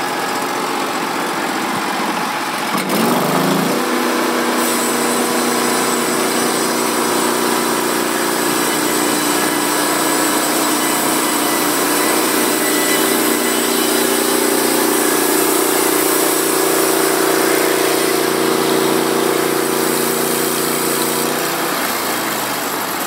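Norwood portable bandsaw mill's gas engine throttles up about three seconds in, then runs steadily under load while the band blade saws lengthwise through a log. It throttles back down near the end.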